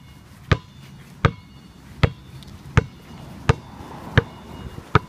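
A green glow-in-the-dark Wilson basketball dribbled one-handed on asphalt: seven sharp bounces at an even pace, about three every two seconds.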